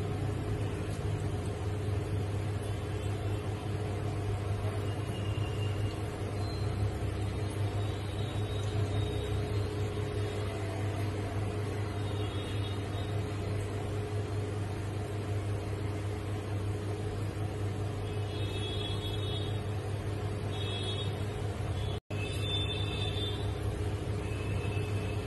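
A steady low hum with no distinct events, and faint high tones now and then.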